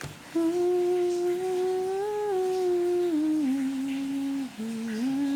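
A person humming a slow, wordless tune: long held notes that drift gently up and then step down in pitch, with a brief break for breath a little after the middle.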